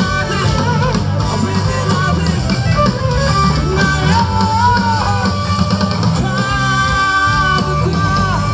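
Rock band playing live, with electric guitar, bass and drum kit under a male lead vocal, heard loud through the concert's sound system from within the audience.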